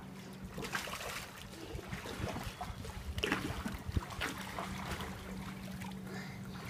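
Pool water splashing and lapping as a small child paddles about, with scattered small splashes over a steady low hum.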